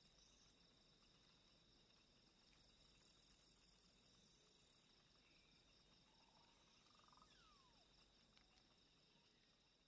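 Near silence, with a very faint, steady chirring of insects in the background that fades away near the end.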